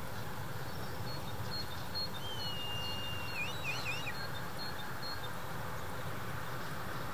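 Red kite calling: a drawn-out whistle held for about a second, breaking into three quick quavering notes, over a steady low background rumble. Faint short high pips repeat about twice a second through the first half.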